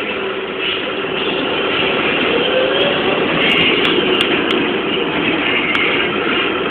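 Cabin noise inside a moving BMC 220 SLF low-floor city bus: steady engine and road noise, with the body and fittings rattling over a badly broken road. A short rising whine comes about two and a half seconds in, and sharp clicks and rattles come every so often in the second half.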